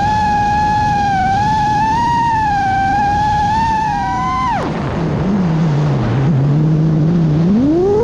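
Five-inch FPV quadcopter's iFlight Xing-E 2207 2450kv brushless motors and props whining, heard from the onboard camera with wind noise: a high, wavering whine drops sharply about halfway through as the throttle is cut, then climbs steeply back near the end as the throttle comes up. The pilot thinks the wavering whine may be a sign of P-term oscillations.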